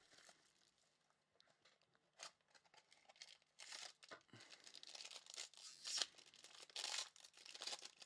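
Faint tearing and crinkling of a foil trading-card pack wrapper being ripped open by hand, in irregular bursts starting about two seconds in.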